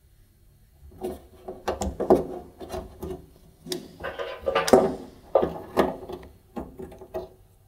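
Rubber grommet and heater cables being worked out through a hole in a tumble dryer's sheet-metal back panel, starting about a second in. It makes irregular rubbing and scraping with light knocks against the panel.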